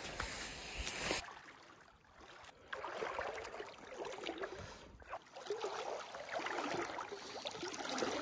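Rubber boots wading through shallow lake water over gravel, each step sloshing and splashing, about one step a second.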